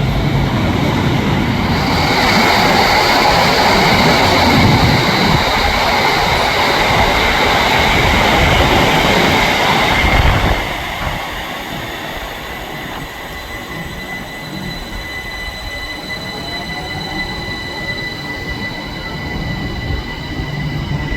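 A train passing close by: loud rumbling rail noise for about ten seconds, which then drops off suddenly to quieter running with a thin, steady, high-pitched wheel squeal.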